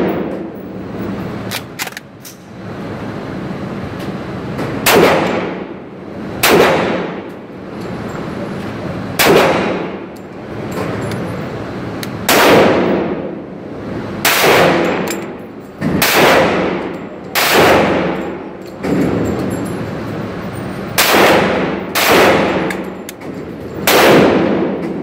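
KRISS Vector carbine fired in single shots, about ten shots spaced one to four seconds apart. Each shot is a sharp crack with a long echoing tail off the walls of an indoor range.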